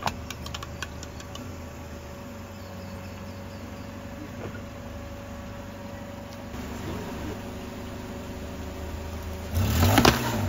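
A Toyota car's engine runs with a steady low hum as the car creeps forward, with a few small clicks in the first second. Near the end comes a sudden loud crunch as the tyre rolls over and crushes an aluminium drink can.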